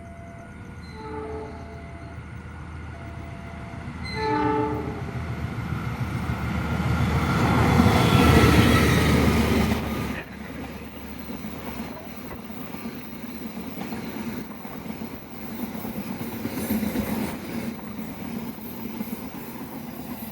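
Train horn sounding two short blasts, about one second and about four seconds in, as a train approaches. The train noise then builds to its loudest as it passes, drops suddenly, and continues as a steady rumble and clatter of carriages going by.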